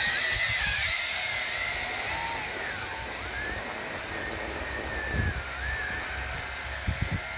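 Tarantula X6 hexacopter's six motors and propellers whining in flight, the high pitch wavering up and down with the throttle. Loudest in the first second, then easing a little.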